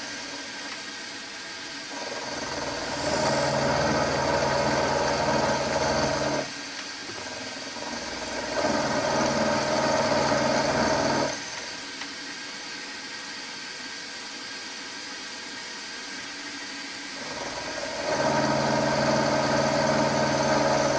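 Milling machine running with its end mill taking light passes along a metal connecting-rod blank; the steady machine hum is louder in three stretches of a few seconds each and drops back between them.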